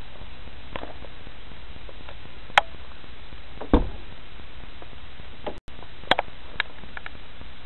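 Steady hiss broken by a few sharp clicks and knocks, typical of a car door being handled and opened, with the loudest click about two-thirds of the way through.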